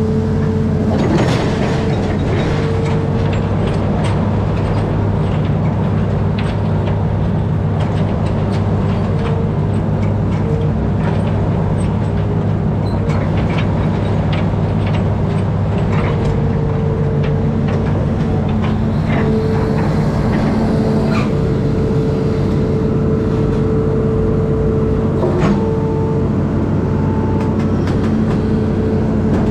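Diesel engine of an amphibious excavator running steadily under working load, with scattered metallic knocks and clanks from the machine at work.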